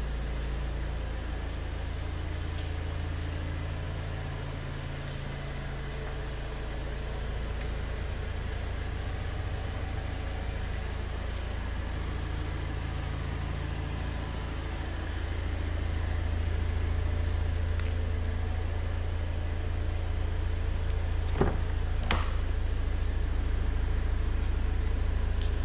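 A steady low rumble and hum, growing a little louder about halfway through, with two sharp clicks about 21 and 22 seconds in as the car's rear door latch is opened.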